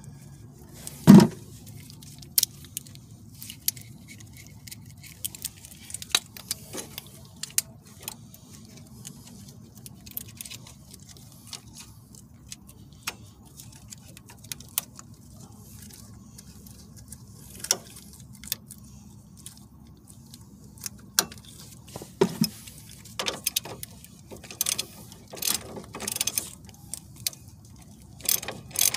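Scattered metallic clicks and clanks of hand tools as locking pliers are adjusted and clamped onto a car's front sway bar end link, with one louder knock about a second in and a busier run of clicks near the end. A low steady hum runs underneath.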